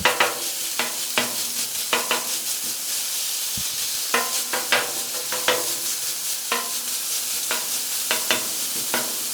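Bacon sizzling on a Pit Boss gas griddle, with irregular sharp metal clinks and scrapes that ring briefly, as a spatula chops the bacon up on the hot plate.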